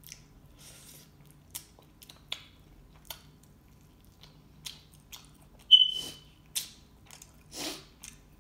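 Close-up mouth sounds of a person eating chicken wings: biting meat off the bone and chewing, with scattered wet clicks and smacks. A little past halfway comes the loudest, a sharp smack with a brief high squeak.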